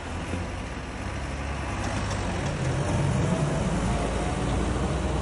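Wheeled tractor's diesel engine running steadily as it drives through deep standing floodwater, growing slightly louder.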